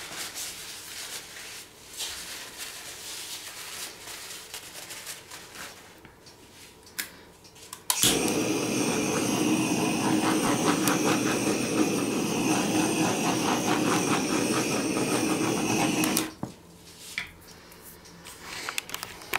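Handheld gas torch flame burning with a steady hiss, passed over wet acrylic pour paint to pop air bubbles and bring out the pearl white. It lights abruptly about eight seconds in and cuts off about eight seconds later.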